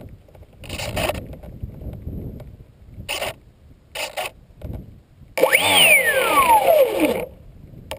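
Small electric motor and propeller given a short burst of throttle, its whine shooting up and then winding down over about a second and a half; a second burst starts near the end. Before that, a few scattered clicks and handling knocks.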